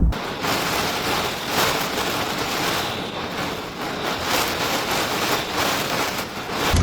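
Steady rushing of water, an even hiss that swells now and then.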